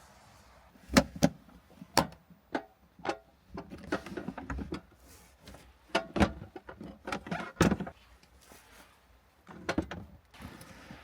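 A series of irregular knocks and clunks, some with a short ring, like objects being handled and set down inside a small vehicle cabin.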